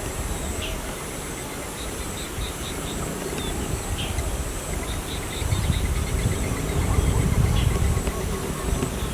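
Farmyard outdoor ambience: faint short bird chirps and a quick run of ticking calls over a steady low rumble that grows louder about five and a half seconds in, with a thin steady high hum above.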